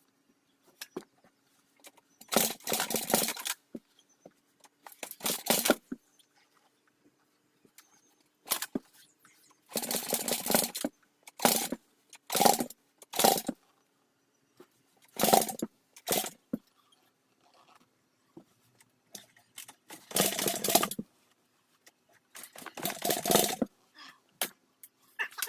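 Rebuilt dirt bike being kick-started over and over, each kick turning the engine over briefly, a second or a few seconds apart, without it firing. The owner puts the failure to start down to an uncleaned carburetor and stale gas.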